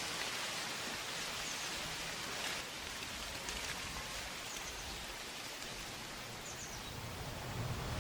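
Outdoor nature ambience: a steady, even hiss with a few faint, brief high chirps scattered through it.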